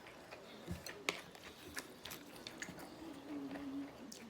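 A person chewing food close to the microphone: soft mouth sounds with scattered sharp clicks and one low thud.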